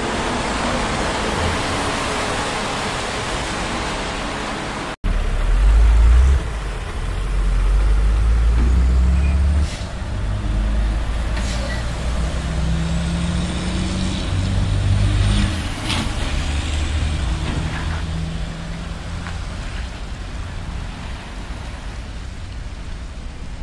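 Road noise from wet highway traffic for about five seconds. Then, after a cut, a tractor-trailer's diesel engine runs close by and loud, revving and changing pitch as it pulls a tanker trailer away, and gradually fades toward the end.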